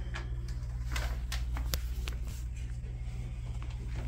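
Steady low hum of room tone with a few light clicks and taps.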